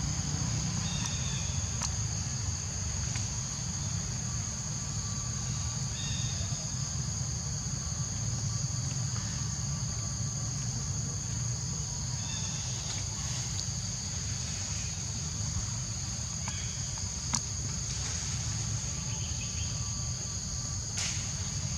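Steady, high-pitched drone of insects, with a low rumble underneath and brief chirps every few seconds.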